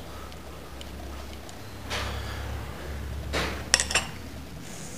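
Small steel parts of a Triumph Spitfire rocker arm assembly clinking and sliding as a rocker arm and spring are fitted onto the rocker shaft, with a few sharp metal clicks a little under four seconds in. A low steady hum runs underneath.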